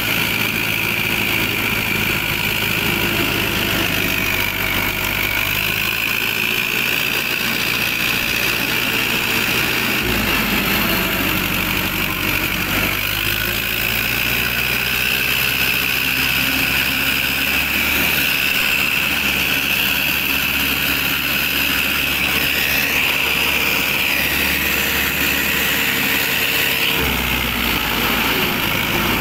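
Small electric motor and gearing of a homemade toy tractor running steadily with a high whine that wavers in pitch as it pulls a suhaga leveller through loose soil.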